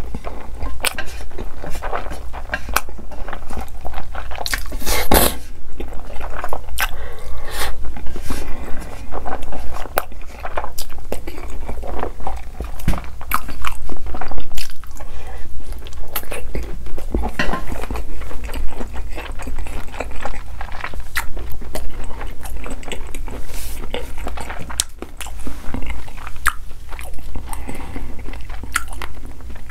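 Close-miked eating sounds: biting into and chewing a glazed sausage, a dense run of wet, crunchy clicks and mouth noises.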